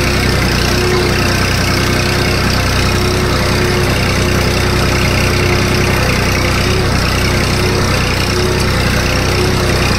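Tractor diesel engine running steadily under way, heard close up from on board the tractor.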